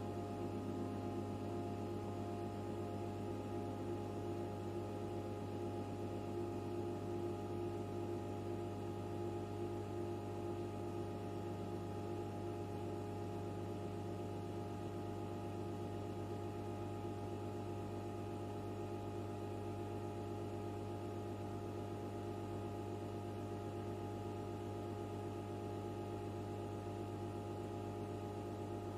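Steady electrical hum of a running HP 9825B desktop computer, its cooling fan and power supply running while it works through a prime-number program. Several higher held tones sit over a strong low hum, and some of them fade out over the first ten seconds or so.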